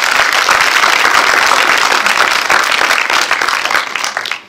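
Audience applauding: a loud, dense wash of many hands clapping at once, dying away near the end.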